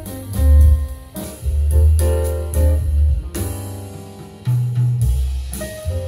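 Instrumental music with drum kit, piano and a deep bass line, played back through a hi-fi amplifier in a blind A/B amplifier comparison.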